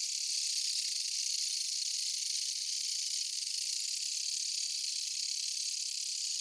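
Insect chorus: a steady, dense high-pitched buzz without breaks or rhythm.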